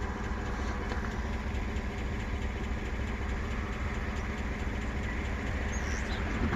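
An engine idling steadily, a low, even hum that does not change.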